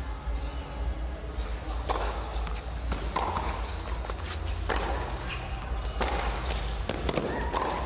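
Tennis rally on a hard court: rackets striking the ball, with the ball bouncing and players' feet on the court, as a series of sharp irregular hits.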